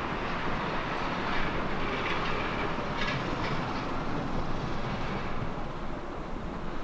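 Blizzard wind blowing steadily, a continuous rushing noise with a low rumble and a few brief stronger gusts in the middle.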